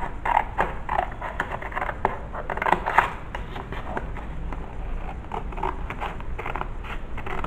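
Scissors snipping through thick cardstock in a run of short, irregular cuts, with the card sheet crackling as it is handled. The cuts come thickest in the first three seconds and grow sparser after, over a steady low hum.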